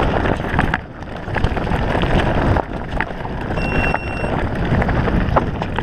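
Mountain bike riding fast down a loose, rocky trail: tyres crunching over stones and the bike rattling, with wind buffeting the camera microphone. A short high beep about three and a half seconds in.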